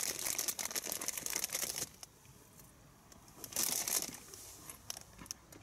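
Crackling, rustling noise on the camera's microphone in two bursts: a dense one of about two seconds at the start, then a shorter one a little before four seconds in.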